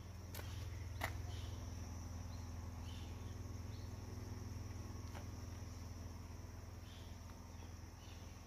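Steady, high-pitched insect chorus of crickets or cicadas, with a low steady hum underneath. A few sharp clicks come in the first second and one about five seconds in.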